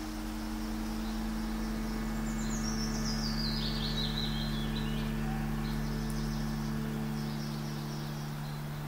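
Fantasy ambience soundscape: a dark drone of sustained low tones, with a high, descending chirping trill a couple of seconds in and fainter high chirps later.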